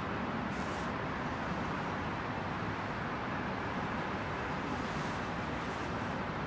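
Steady hum of city traffic. Two faint short scuffs come about half a second in and again near the end.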